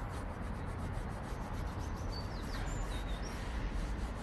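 Cloth rubbing linseed oil into a weathered wooden tabletop, over a steady low rumble. A bird chirps a few times about two to three seconds in.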